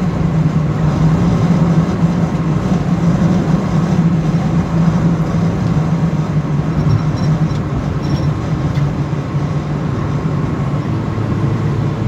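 Steady in-cabin noise of a Subaru Forester with a 2.0-litre flat-four engine cruising at motorway speed: a low engine hum under tyre and wind noise. The hum drops lower near the end.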